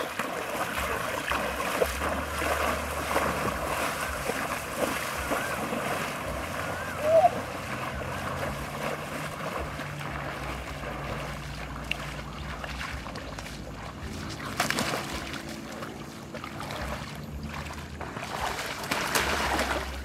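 Shallow floodwater splashing and sloshing as a person wades through it, over steady wind rumble on the microphone. A short rising call sounds once about seven seconds in, and there are sharper splashes near the end.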